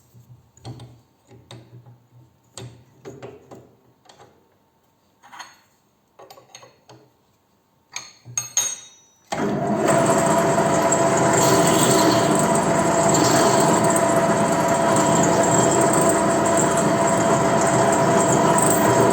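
Light clicks and knocks of metal parts being handled. About nine seconds in, a loud, steady, motor-driven whir cuts in abruptly and keeps running.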